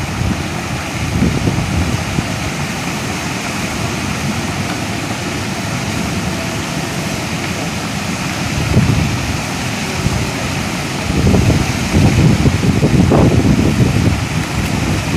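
Strong wind buffeting the microphone: a steady rushing with low rumbling gusts that swell about nine seconds in and again from about eleven to fourteen seconds.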